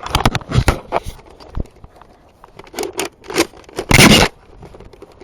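Clicks and scrapes of a Nerf blaster being reloaded and handled, with a louder half-second burst of noise about four seconds in.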